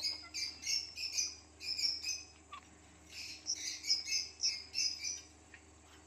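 Indian ringneck parrot giving short, repeated chirping calls, several a second, in two runs with a pause of about a second between them.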